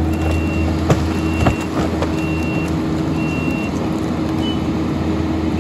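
A loader's engine running steadily while its reverse alarm beeps about once a second, with a few knocks along the way.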